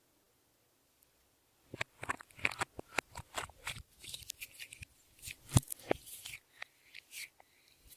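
Clear slime being squished and stretched by hand, giving a quick irregular run of sticky clicks and pops that starts about two seconds in and dies away near the end.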